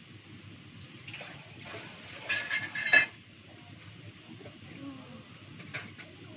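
Handling at a kitchen sink while cleaning shrimp: about two seconds of hissing and rustling, likely a brief run of water, ending in a sharp knock about three seconds in, then a couple of light clicks near the end.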